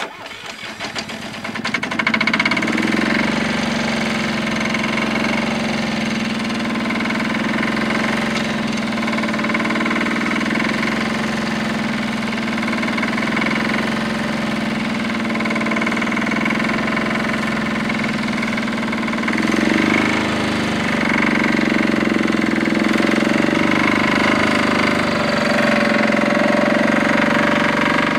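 Holder Cultitrac A12's single-cylinder, air-cooled Sachs two-stroke diesel engine running steadily as the small tractor drives along with its plough. The sound comes up over the first two seconds, then holds even with a slight swell partway through.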